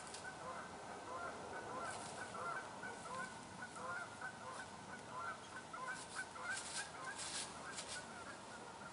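A flock of geese honking, many short calls overlapping one another. A few brief rustling noises come about six to seven and a half seconds in.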